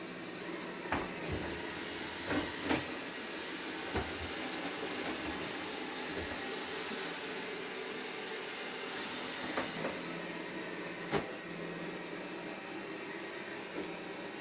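Xiaomi Mi robot vacuum running with a steady whir from its suction motor and brushes. Several short knocks are heard at irregular moments as it bumps against furniture.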